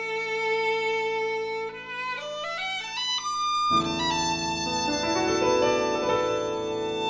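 Violin with Steinway grand piano accompaniment: the violin holds a long note, then climbs step by step to a high note, and about halfway the piano comes in with fuller, deeper chords under the violin's melody.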